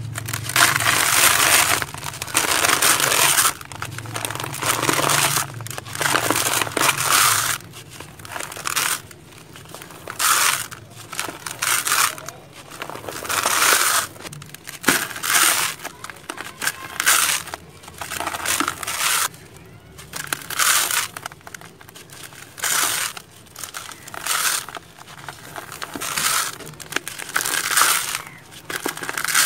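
Hands crushing and crumbling dry, gritty squares, the grains crunching and falling into a plastic tub. It comes in repeated bursts of about a second each, separated by short gaps.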